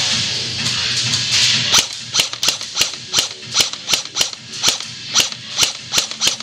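Airsoft gun firing a quick string of single shots, about four a second, sharp clicks starting about two seconds in and running on to near the end.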